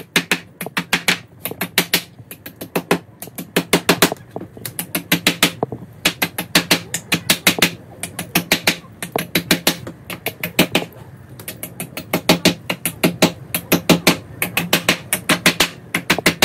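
A hammer tapping steel nails on a wooden slat frame in quick runs of light strikes, several a second, with short pauses between runs. The nail points driven through the base are being bent over flat.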